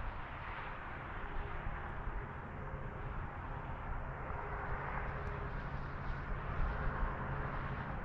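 Interstate highway traffic: a steady rush of tyre and engine noise, with a passing vehicle swelling up and fading away around the middle and again near the end.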